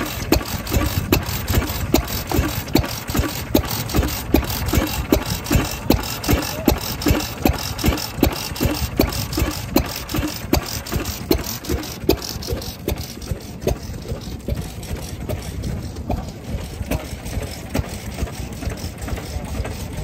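Old single-cylinder Japanese farm stationary engine (hatsudoki) running at idle with a slow, even beat of about two firing strokes a second. After about twelve seconds the beat grows fainter, leaving a steadier, lower engine sound.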